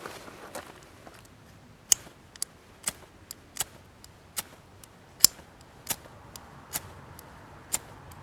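Wood campfire crackling: sharp, irregular pops, roughly one or two a second, over a faint hiss.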